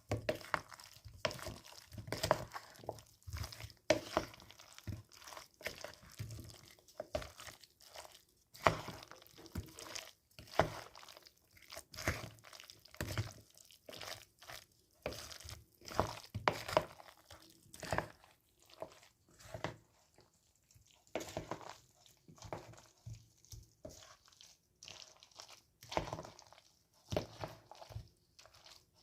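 A person biting and chewing crunchy food close to the microphone, with irregular crunches coming one after another.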